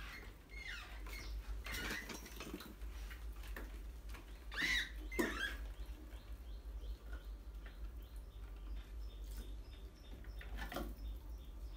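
Rats squeaking and squealing in short rising-and-falling cries, loudest about halfway through, amid the light scratching and pattering of their claws on a tiled floor. A steady low hum runs underneath.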